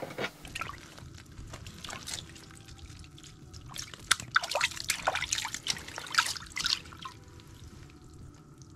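Water sloshing and splashing in a slushy ice-fishing hole as a burbot is slid back down it, with a cluster of louder splashes from about four to seven seconds in.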